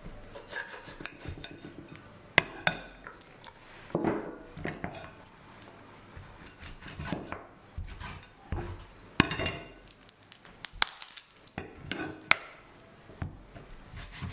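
Cooking utensils and dishes being handled: scattered clinks and knocks at irregular intervals, with a few sharper strikes.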